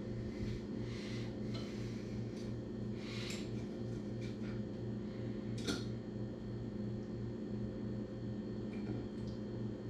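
A steady low hum, with scattered faint clicks and rustles from someone handling and eating fried chicken at a table; one sharper click comes a little past halfway.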